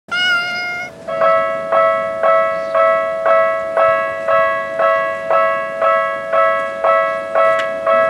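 A short meow, then about a second in a Japanese railway level crossing's warning bell starts its repeating 'kan-kan' ding, about two strikes a second, as the crossing alarm begins for an approaching train.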